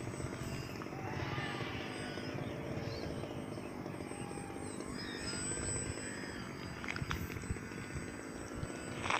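Motor of a flat-foam Su-37 RC model plane, an electric motor, buzzing as the plane flies overhead. Its faint whine wanders up and down in pitch over a steady low rumble.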